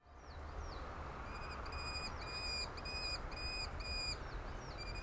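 A bird calling: a couple of falling whistled notes, then a steady series of about seven short, even, high notes at roughly two a second, with more falling notes about four seconds in. A low steady rumble runs beneath.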